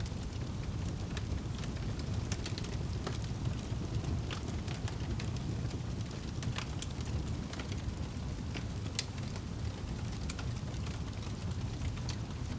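Wood fire crackling in a fireplace: many irregular small pops and snaps over a steady low rumble.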